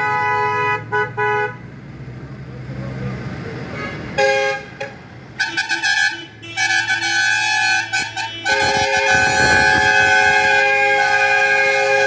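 Vehicle horns of passing cars and trucks honking: a run of short toots at the start, a lull with road noise, then longer honks from about four seconds in, ending in one long held honk with several tones sounding together.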